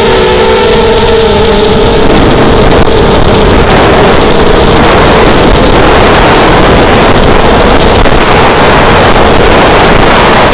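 Racing quadcopter's motors and propellers heard through the onboard camera's microphone, loud, with wind rushing over it. A whining tone wavers in pitch during the first second or so, then blends into an even rushing noise.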